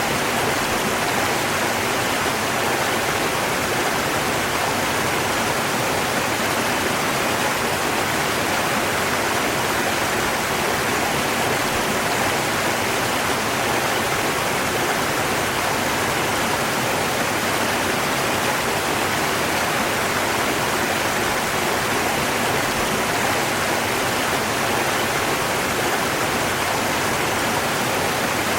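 River water rushing: a steady, even rush with no splashes or changes.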